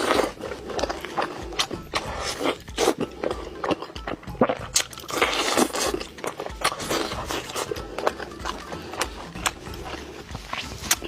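Close-miked eating sounds: irregular crunching and biting of food, over background music.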